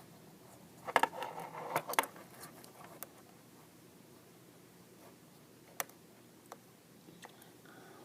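Knitting needles clicking and rattling against each other as stitches are worked: a quick cluster of clicks about a second in, then a few sparse single clicks.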